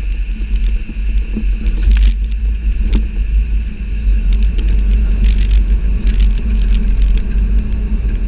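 Cockpit noise of an Airbus A320neo rolling out on the runway just after touchdown: a heavy, steady low rumble with a constant hum, and scattered sharp clicks and rattles through it.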